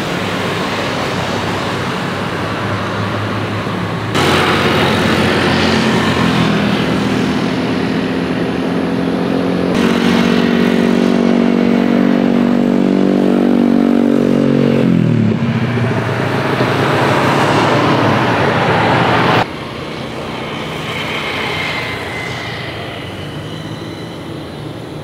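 Jet airliner engine noise at the runway, changing abruptly at several cuts in the footage. While a twin-engine widebody rolls past on the runway, a steady engine hum over the jet noise drops sharply in pitch as the aircraft goes by.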